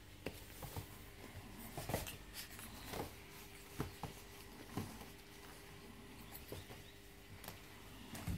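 Five-week-old Staffordshire bull terrier puppies playing on bedsheets: faint rustling and scrabbling of paws on the cloth, with scattered soft knocks and clicks.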